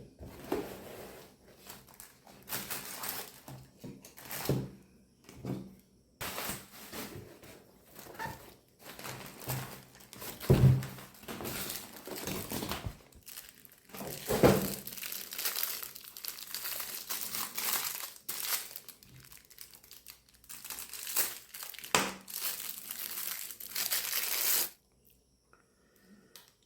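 Packaging of a tripod stand being handled and unwrapped: irregular crinkling and rustling with some tearing and a few dull knocks, stopping suddenly near the end.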